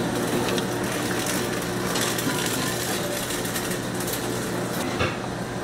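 Electric meat strip-cutting machine running with a steady motor hum, its rotating circular blades slicing pieces of cooked meat fed into the hopper. A short knock about five seconds in.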